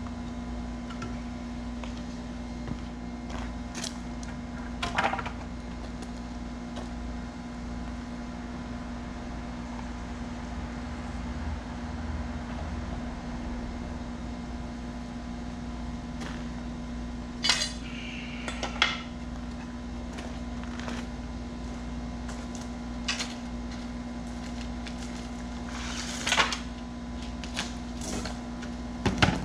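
Scattered short clatters and knocks of tools and scraps being handled, a few at a time, over a steady background hum.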